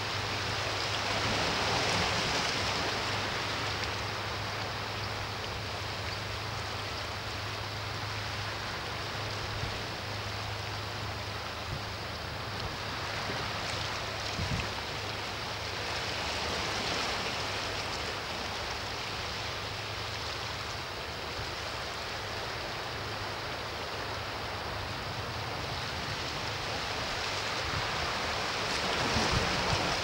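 Sea waves washing against shoreline rocks: a steady rush of surf that swells gently about two seconds in, midway and again near the end, with a low steady hum underneath.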